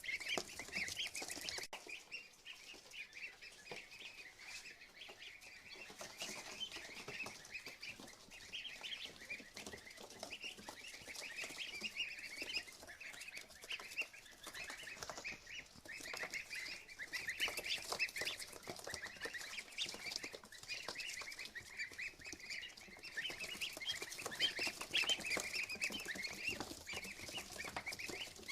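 A group of ducklings peeping without pause, many short high peeps overlapping one another.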